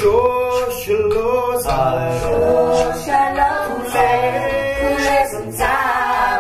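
Music: voices singing long held notes in harmony over low bass notes, with a beat about every 0.8 seconds.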